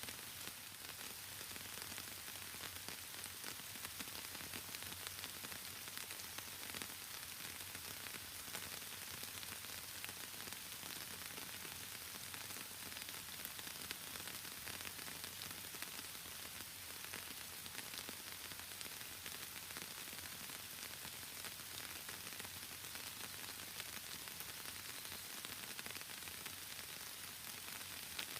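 Steady rain falling, a dense, even hiss with many small drop ticks.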